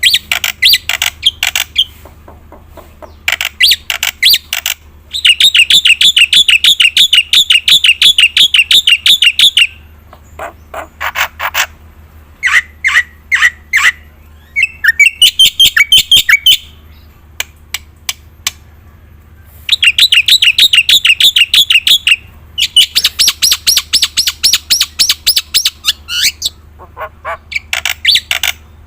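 Black-winged myna (jalak putih) singing loudly in long runs of fast, chattering repeated notes, with brief pauses between the phrases.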